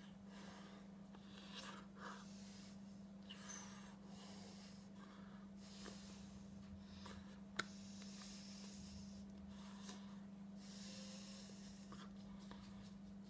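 Near silence with a steady low hum, soft breaths and the rustle of a fleece jacket's sleeves as hands sign, and one sharp click about seven and a half seconds in.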